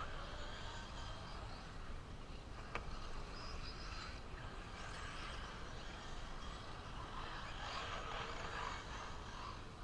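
Electric 1/8-scale RC truggies running on a dirt track out of sight, heard as a faint, steady mix of motor and tyre noise, with a single sharp click about three seconds in.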